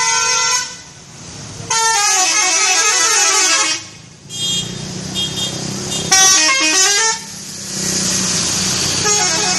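Bus telolet horn, a multi-trumpet musical horn, playing a run of short tunes: about four blasts of stepping notes, the longest about two seconds, with another tune starting near the end.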